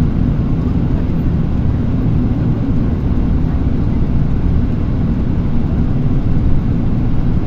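Steady low rumble of tyre and engine noise, heard from inside a vehicle moving at motorway speed.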